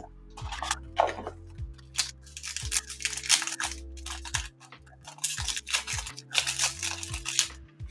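Foil trading-card pack wrapper being torn open and crinkled in the hands: a run of crackling, rustling bursts, busiest from about two seconds in until near the end.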